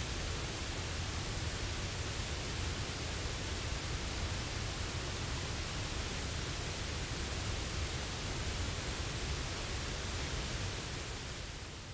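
Large waterfall in heavy flow, a steady rush of falling water that fades out near the end.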